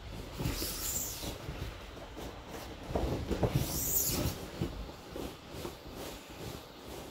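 Inflated vinyl whale creaking and squeaking as a person shifts his weight on it and rubs a hand over its skin, in two spells: a short one about a second in and a longer, louder one around three to four seconds in.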